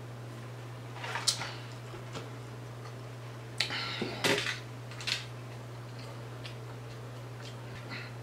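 Close-miked eating and drinking sounds: a few short crunches and clicks while a mouthful of fried seafood is chewed after a drink from a cup, over a steady low electrical hum.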